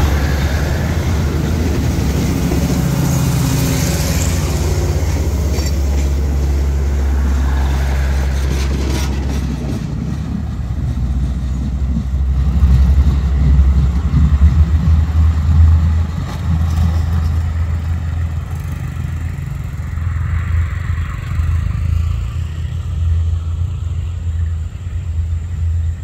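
Diesel train running past with a steady low rumble; the higher-pitched running noise dies away about ten seconds in, leaving the low engine rumble.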